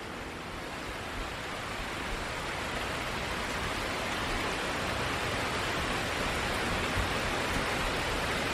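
Heavy rain pouring down, a steady hiss that grows gradually louder.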